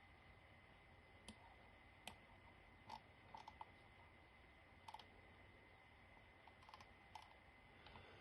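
Faint, scattered clicks from a computer keyboard and mouse being worked, about ten in all at uneven intervals, over a low steady background hum.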